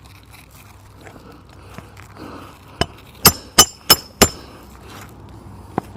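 A metal hand tool striking metal: five sharp, ringing metallic clinks about a third of a second apart, then a single lighter clink near the end.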